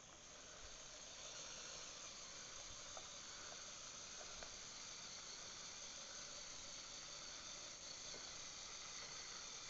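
Faint, steady running noise of the small LEGO electric motors driving a model drop tower's gondola up the tower. It gets a little louder about a second in, and a few light clicks come through.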